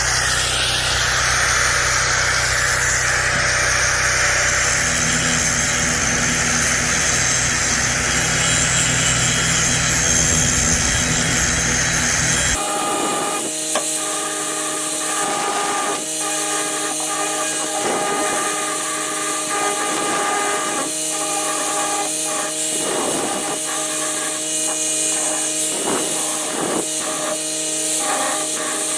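Power tool grinding steel on a brush hog, cleaning the metal up before welding. About twelve seconds in the sound changes abruptly: the low rumble drops away, leaving steadier whining tones broken by irregular short bursts.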